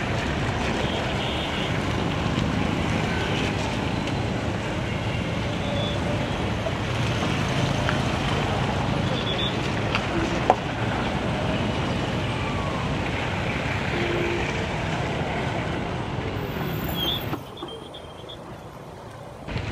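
Heavy street traffic close by, with a truck and a bus passing within a few metres: engine and road noise. There is a sharp click about ten seconds in, and the noise drops off suddenly near the end.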